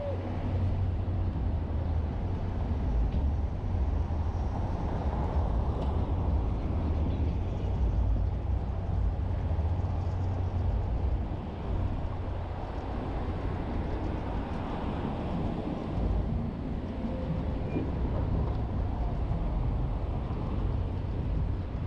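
City driving sound picked up by a camera mounted on the outside of a moving car: a steady low rumble of road and engine noise with the traffic of the street around it.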